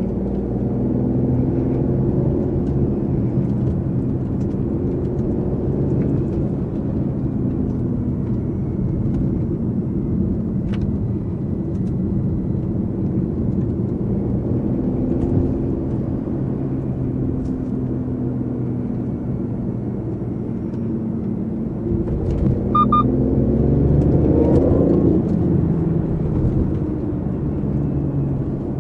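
BMW i8's turbocharged three-cylinder engine droning steadily while driving, heard from inside the cabin. About 22 seconds in it picks up and rises in pitch as the car accelerates, then settles again.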